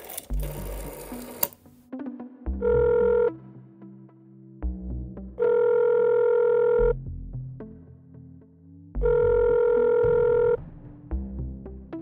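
A rotary telephone dial whirs back with a few clicks in the first two seconds. Then the line's ringback tone sounds three times, steady tones about a second and a half long with two-second gaps, the first one shorter, over soft background music.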